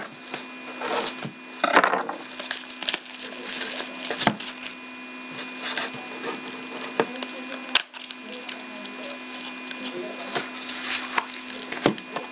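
A sealed Panini Select hockey card box being torn open and its foil packs pulled out and handled: irregular crackling, tearing and crinkling with sharp clicks.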